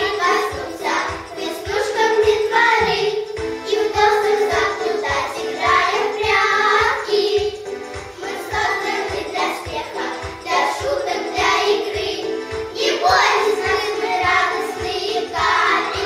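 Children singing a song with instrumental accompaniment and a steady beat.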